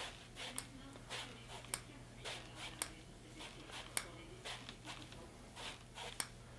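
Faint rhythmic swishing as a leg swings back and forth against a resistance band, with five sharp light clicks, about one a second, from the band's clips and ankle strap.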